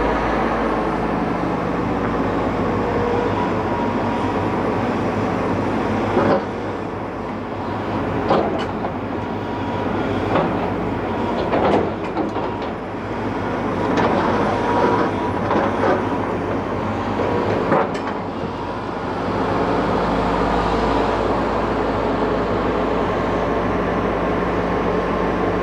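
Hidromek 220 LC hydraulic excavator working, its diesel engine running steadily. Through the middle stretch come a series of sharp metallic knocks and clanks.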